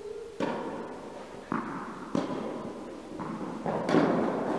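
Tennis ball being struck by rackets and bouncing on an indoor court during a rally: about six sharp pops at uneven intervals, each with a short echo from the hall, the loudest about four seconds in.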